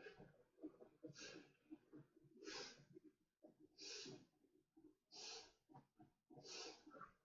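Faint breathing of a person blowing up a vinyl pool float by mouth: a short, hissy breath about every second and a quarter, five in all.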